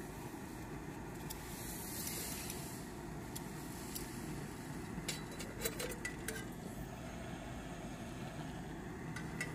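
Canister gas stove burning steadily with an even hiss under a frying pan. A few sharp metal clicks and clinks come about five to six seconds in as the pan and its handle are handled.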